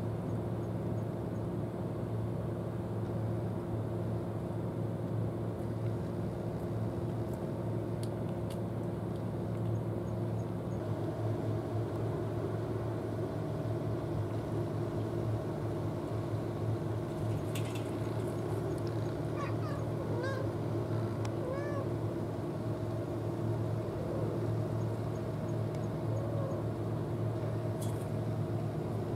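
A cat meowing a few short times about two-thirds of the way through, over a steady low mechanical hum.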